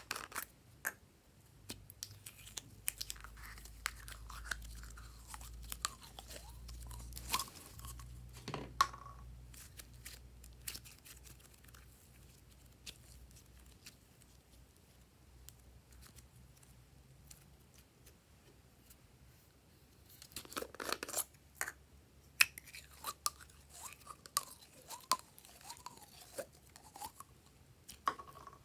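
Hands squeezing, stretching and folding soft slime, giving sticky crackles and small irregular pops and clicks. The sounds thin out for several seconds in the middle and come thick again near the end.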